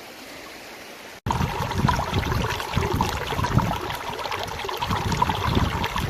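Faint, steady rush of running water, then an abrupt cut about a second in to loud, uneven noise with a heavy low rumble: wind buffeting the microphone over moving water.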